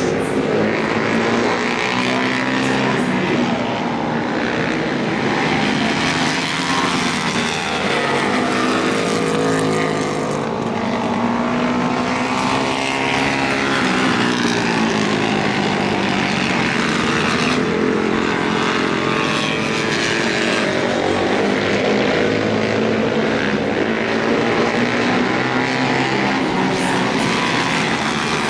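Flat-track racing motorcycle engines at racing speed, with several engine notes rising and falling in pitch as the bikes rev down the straights and ease off into the turns.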